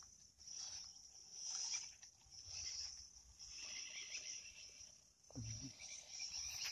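Insects chirping in a high-pitched, pulsing drone that swells and fades every second or so, with a brief low thud about five and a half seconds in.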